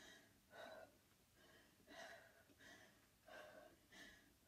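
A woman's faint, quick breaths, puffed out in a steady rhythm about once every two-thirds of a second as she does bicycle crunches, breathing hard from the exertion.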